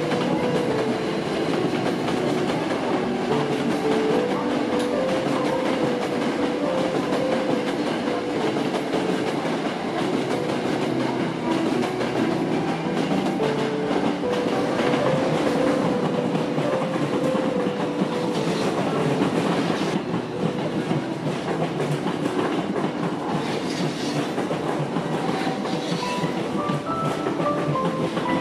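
Electric commuter trains running on the tracks, with instrumental background music playing a melody throughout.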